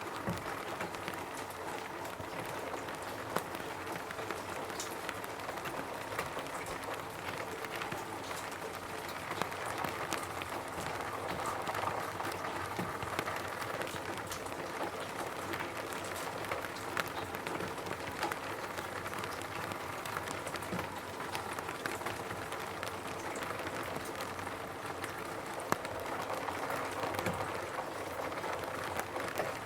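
Steady rain drumming on a roof, an even hiss dotted with many sharp individual drop hits.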